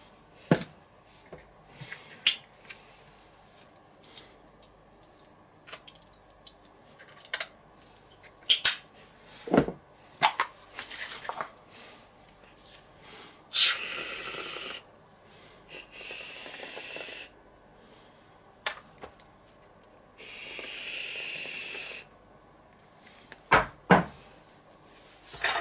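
Aerosol can of whipped cream sprayed in three hissing bursts, one for each bowl, the longest about two seconds. Sharp clicks and knocks come in between, near the start and again near the end.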